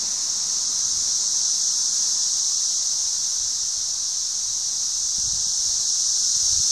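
Chorus of cicadas: a loud, steady, high-pitched buzz that never lets up.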